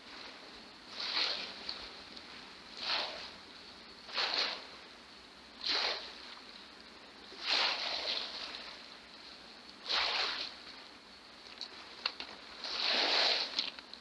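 Small waves washing up on the shore in separate surges every couple of seconds, the longest and loudest near the end.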